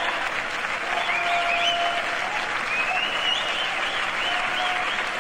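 Concert audience applauding and cheering after a song, with high wavering shouts and whistles over the steady clapping.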